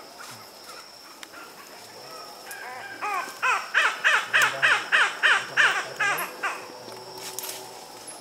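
An animal calling: a quick run of about a dozen loud notes, each falling in pitch, at about three a second.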